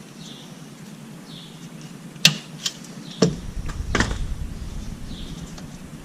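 A few sharp clicks and knocks from hand work on the vehicle, the loudest about two seconds in, with a low rumble from about three seconds in. Faint chirps, like a bird, repeat about once a second.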